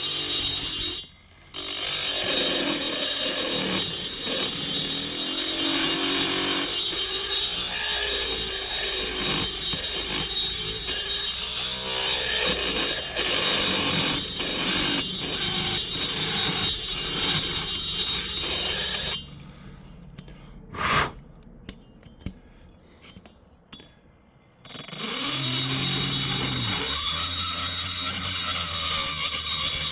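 High-speed rotary tool with a carbide burr grinding out the lower transfer port of a Husqvarna 266 SE chainsaw cylinder: a steady high whine while it cuts. It stops briefly just after a second in, breaks off for about five seconds about two-thirds of the way through, then starts again.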